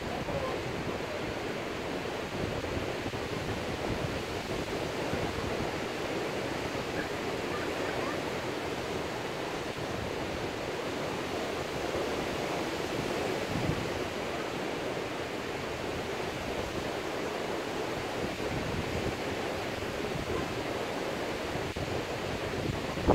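Steady, even wash of Gulf surf breaking along the beach, heard from high above, with some wind on the microphone.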